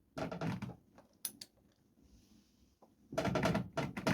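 Grunts and strained breaths from someone heaving on a large torque wrench to tighten a motorcycle's front drive sprocket nut, with two sharp clicks about a second in.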